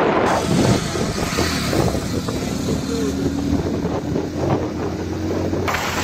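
Two-wheeler engine running steadily while riding along the road, with road and wind noise.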